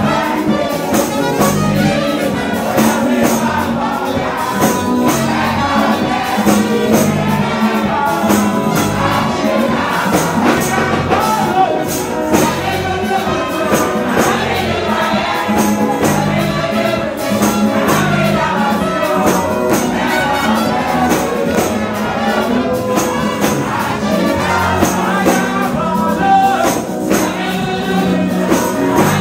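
Live gospel music: voices singing into microphones over a steady percussion beat and a bass line.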